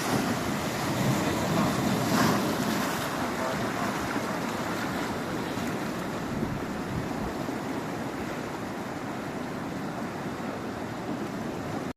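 Steady wind and sea noise: wind buffeting the microphone over the sound of waves, a little louder in the first three seconds.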